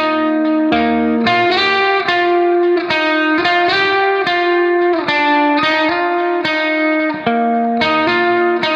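Instrumental music: a slow melody of sharply started, sustained notes, one after another.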